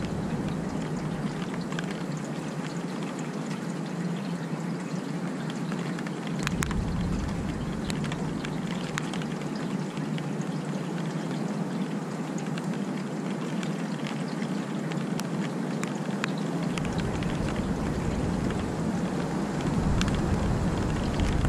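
Steady rain falling, with scattered sharp drip ticks. A low rumble comes in during the last few seconds.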